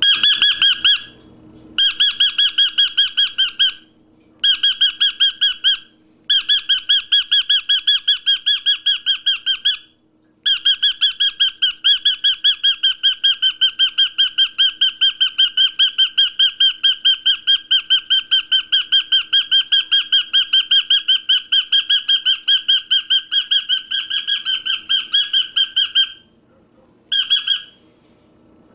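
A bird calling in long runs of short, sharp, evenly repeated notes, about five a second. The runs break off briefly several times, with the longest run lasting about fifteen seconds in the middle.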